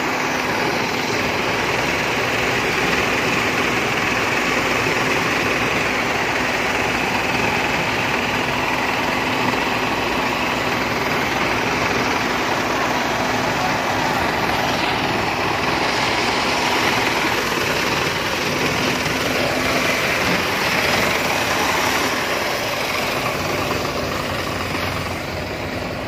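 Tracked rice combine harvester running while it harvests: a steady, dense mechanical din from its engine and cutting and threshing machinery, with an even hum underneath. It grows slightly softer near the end.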